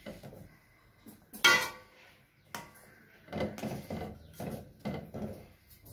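Perforated metal ladle knocking and scraping against a steel pot as broken wheat rava is stirred into boiling water. The strokes come about once a second, the sharpest clink about one and a half seconds in.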